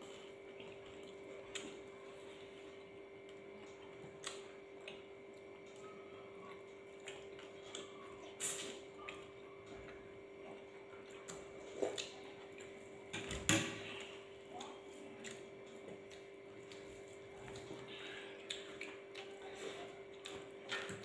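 Two people eating rice by hand: scattered wet mouth clicks and smacks of chewing, fingers working the rice, and a few sharper knocks of bowls or spoons, the loudest about two-thirds of the way through. A steady low hum runs underneath.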